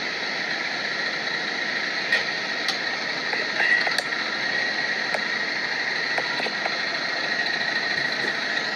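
Steady mechanical running noise with a high, even hum, and a few light clicks about two to four seconds in.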